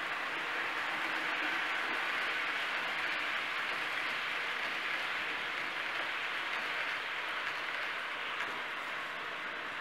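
Märklin H0 model train, two electric locomotives hauling passenger coaches, rolling past on C-track: a steady rushing rattle of wheels running over the track.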